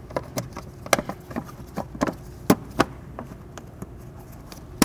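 Hand ratchet clicking in short, irregular runs of ticks as an 8 mm bolt is run down, with a sharper click at the end.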